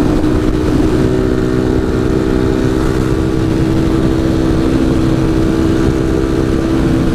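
Honda CG Titan 150's single-cylinder engine running steadily at cruising speed through a Gemoto sport exhaust, with heavy wind buffeting on the microphone.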